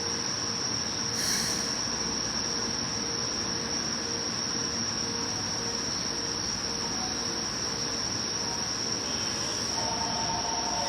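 Insects chirring in one steady, unbroken high pitch over a constant low station rumble. About ten seconds in, a pair of steady mid-pitched tones sets in.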